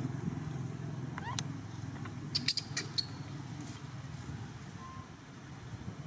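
Baby macaque giving one short rising squeak about a second in, over a steady low rumble, with a few sharp clicks a little before the middle.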